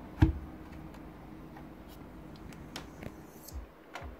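Handling noise around a loose subwoofer driver in a chipboard baffle. There is one heavy low thump about a quarter second in, then a few light clicks and ticks, the last as a button on the hi-fi unit is pressed.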